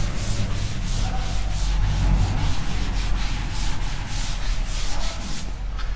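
Duster rubbing chalk off a blackboard in quick back-and-forth strokes, about three a second, stopping shortly before the end.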